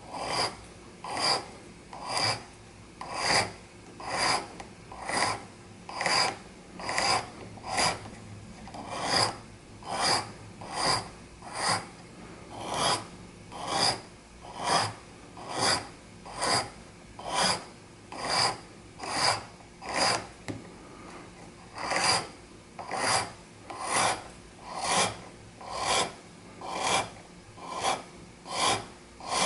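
Flat hand file rasping over grafted briar wood on a tobacco pipe's shank, taking the graft down by hand to the level of the rest of the shank. The strokes are even, about one a second, with a short pause about two-thirds of the way through.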